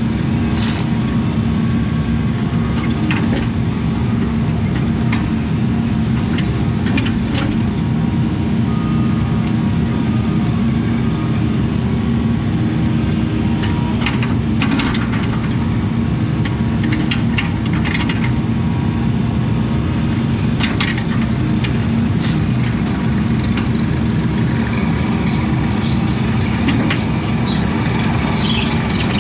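A Case mini excavator's diesel engine runs steadily under working load, with scattered knocks and scrapes as dirt is worked and shaped.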